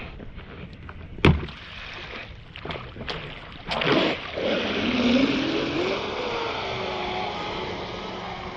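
Radio-controlled racing boat: a few knocks and clicks, one sharp, then about four seconds in its motor spools up with a rising whine over a water hiss and settles into a steady run.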